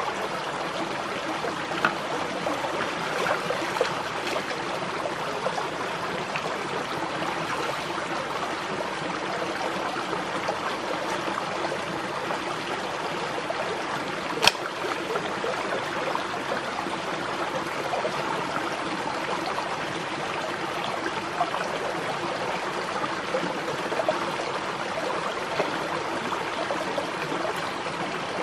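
Stream water flowing steadily, with a few faint knocks and one sharper click about halfway through.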